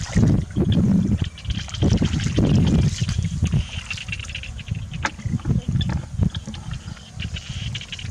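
Water sloshing and trickling, with many small knocks and splashes.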